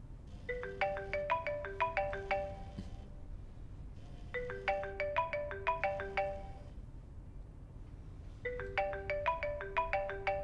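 Mobile phone ringtone: a short melody of quick, bell-like notes, played three times about four seconds apart.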